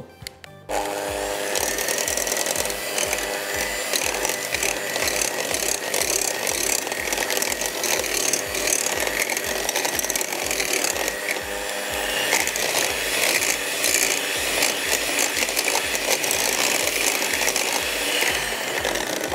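Electric hand mixer running steadily with a whine, its beaters whisking cream and powdered sugar in a glass bowl. It starts about a second in and cuts off near the end.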